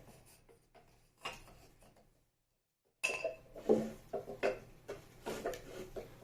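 Wooden beehive frame parts knocking and clattering against each other and against a wooden jig as they are set in place. There is a single knock about a second in, then a run of quick, uneven clatters in the second half.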